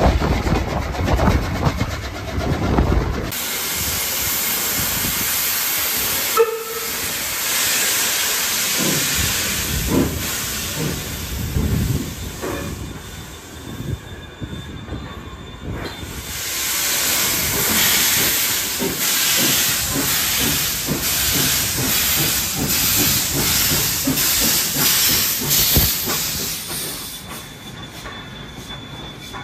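Steam hissing loudly from the C17 974 steam locomotive. It starts about three seconds in after a stretch of the train's low rumble, eases off briefly midway, and cuts off a few seconds before the end.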